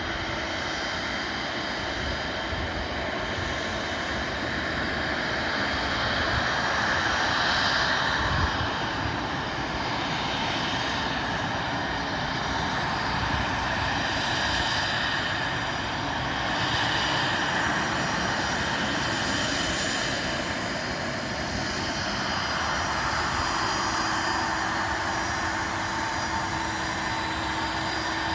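Bombardier CRJ-100's twin rear-mounted GE CF34 turbofans running at taxi power: a steady jet whine over a rushing noise, swelling a little and easing off as the airliner taxis onto its stand.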